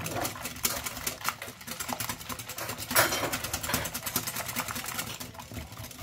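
Wire whisk beating eggs in a glass bowl, its tines clicking rapidly against the glass, with one louder clack about halfway through.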